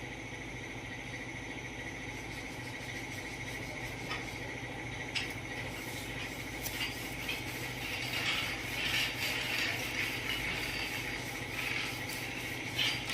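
Scattered clicks and a stretch of rubbing and scraping, typical of hand-tool work, over a steady mechanical hum.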